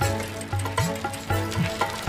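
Background music with a steady beat, its low bass note sliding upward on each beat.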